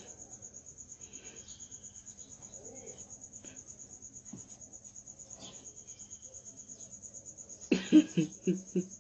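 Cricket chirping steadily: a high, evenly pulsed trill of about seven pulses a second. Near the end there is a short burst of louder sound.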